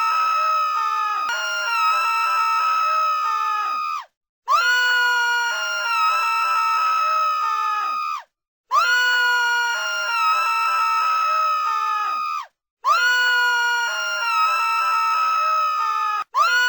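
Looped sound effect of a high-pitched voice moaning: the same sustained cry, about four seconds long, repeats over and over, broken by short silences about every four seconds.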